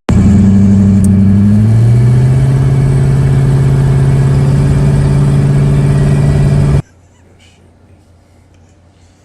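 Drag car engine running loud and steady, its pitch stepping up just under two seconds in, then cutting off suddenly about two-thirds of the way through.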